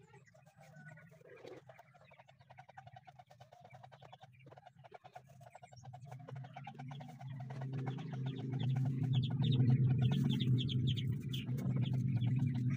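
Chickens clucking, growing louder about halfway through as a hen comes close, with quick high chirps near the end.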